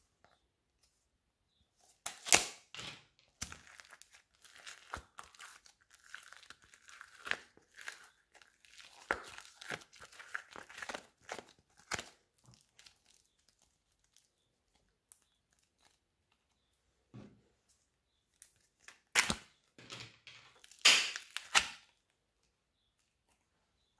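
Small plastic tubs of modelling clay being opened and the clay unwrapped: crinkling and tearing of plastic film and seals, with sharp clicks. The sound comes in two spells, a longer run of crackling in the first half and a louder burst near the end, with a quiet gap between.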